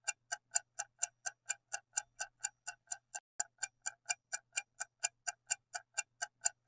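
Clock-ticking sound effect counting down the answer time in a quiz, with steady, even ticks about four a second.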